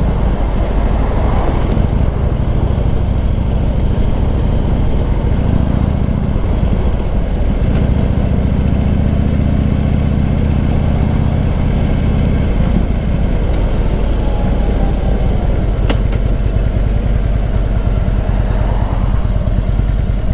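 Harley-Davidson Road King's V-twin engine running under way, pulling a sidecar combination. The engine note dips and changes a couple of times as the throttle and speed vary.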